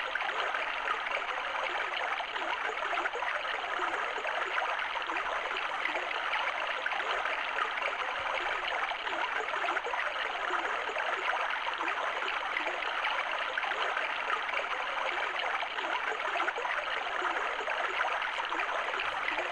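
The 'Babbling Brook' preset of a Soothing Sounds 20 clock radio playing through its small speaker: a steady, even stream-like rushing with a crunchy, low-fidelity sound and no high end.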